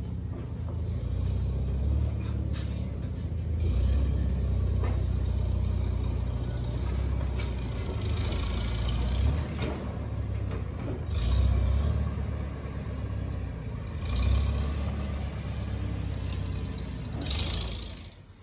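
Old farm tractor engine running under load as it moves a loaded hay wagon, a steady low rumble that revs up and falls back several times. It cuts off just before the end.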